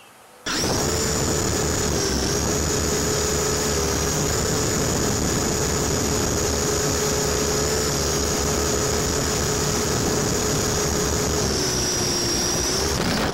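Electric motors and rotors of an Interceptor 3.0 dual-rotor RC helicopter in flight, a loud steady whine and buzz heard close up through the onboard wireless camera's audio link, with heavy hiss. The whine starts suddenly about half a second in, sags slightly in pitch about two seconds in and again near the end, then cuts off abruptly.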